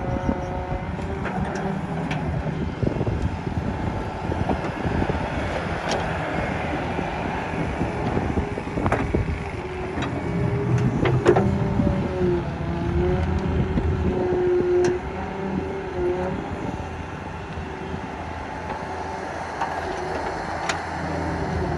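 Daewoo Solar 130 crawler excavator's diesel engine running steadily under load, with a whine that rises and falls in pitch as the hydraulics work and scattered sharp knocks and scrapes from the bucket in the soil.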